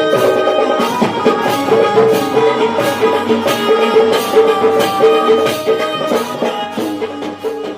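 Dholki drums played in a brisk, steady rhythm over sustained instrumental tones, as in a Marathi folk performance; the playing begins to die away near the end.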